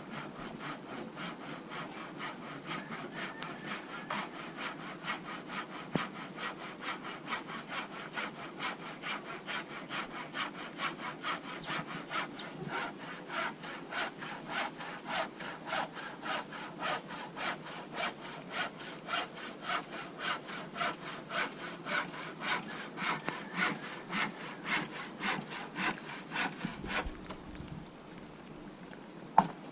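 Hand saw cutting through timber in steady back-and-forth strokes, about two a second, that stop near the end, followed by a single knock.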